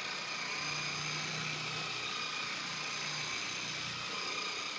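Dual-action polisher running steadily at its low speed setting (level 2), its medium foam pad working cutting compound into an oxidized boat surface. It makes an even motor hum with several high, steady tones.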